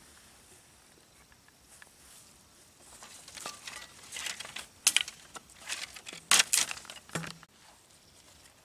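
A run of short scraping and rustling strokes from a machete working at soil and dry twigs, starting about three seconds in and lasting about four seconds, loudest near the middle.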